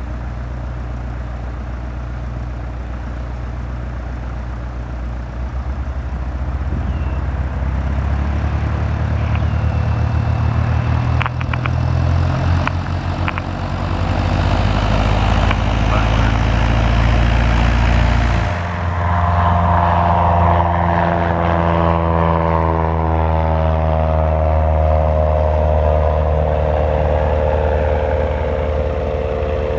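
Cessna 172S Skyhawk SP's four-cylinder Lycoming engine and propeller at full takeoff power, growing louder as the plane rolls closer down the runway. About two-thirds of the way in the sound changes abruptly and drops in pitch as the aircraft passes and climbs away.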